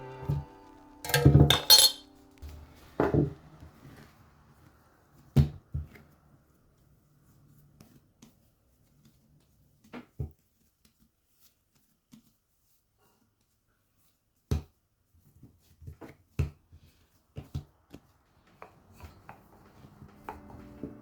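Kitchen handling sounds: a scattered series of knocks and clinks of utensils and containers on a counter, loudest in the first two seconds, with single knocks spread through the rest.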